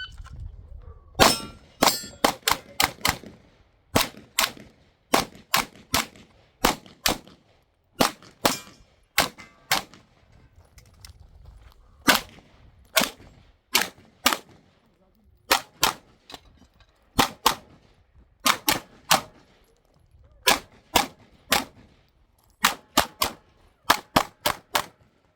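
9mm Glock 45 pistol firing rapid strings of shots, in quick pairs and bursts of three to six, with gaps of about a second between groups as the shooter moves through a stage.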